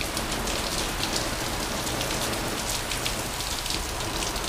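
Steady rain: an even hiss with a dense patter of individual drops.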